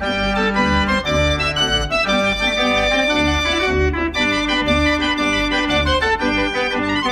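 Gavioli fairground organ "The Troubadour" playing a lively tune, with held chords and a melody over a regular beat in the bass.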